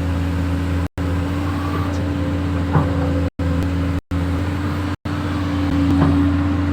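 An engine running at a steady pitch with a low hum. The sound drops out completely four times: about a second in, twice between three and four seconds in, and at five seconds.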